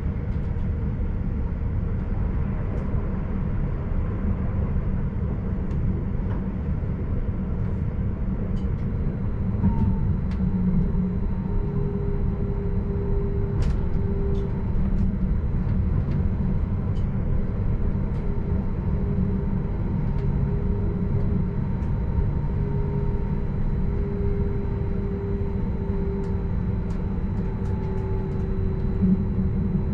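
Stadler RABe 515 'Mutz' double-deck electric multiple unit running along the line, heard from the driver's cab: a steady rumble of wheels on rail with a faint whine from the traction equipment that comes and goes, and a few light clicks.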